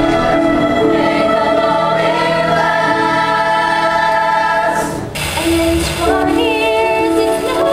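A choir singing in harmony, holding chords; about five seconds in the singing breaks off briefly and a new phrase begins with wavering, vibrato notes.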